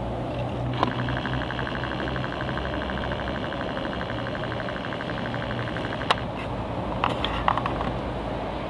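Passenger train approaching through the station: a steady low engine hum with a rapid, evenly pulsing high tone from about a second in until about six seconds in, and a few sharp clicks near the end.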